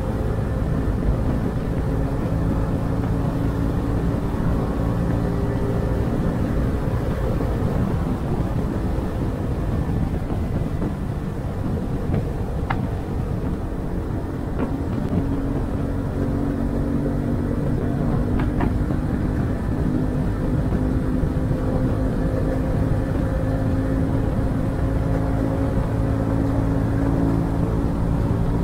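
Honda CB125R's single-cylinder engine running through its stock exhaust at road speed, with wind rush on the microphone. The engine note eases off and drops in level toward the middle, then rises again as the bike accelerates.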